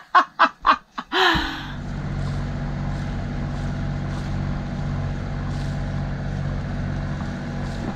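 A catamaran's diesel engines running steadily under way, an even low hum that sets in about a second in.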